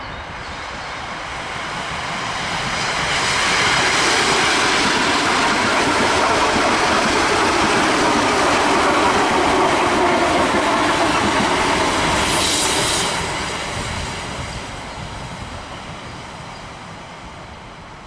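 ER2 electric multiple unit running past on the rails: the rumble of wheels and carriages builds over about four seconds, holds, then fades away. About twelve seconds in there is a brief high-pitched screech.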